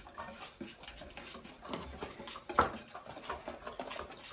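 Wire whisk mixing flour, sugar and baking powder in a bowl: a quick run of light scrapes and clicks against the bowl, with one louder knock about two and a half seconds in.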